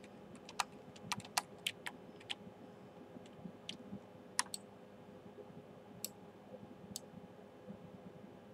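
Computer mouse clicking as shapes are selected and dragged: about a dozen short, sharp clicks, bunched in the first two and a half seconds and sparser after, over a faint steady hum.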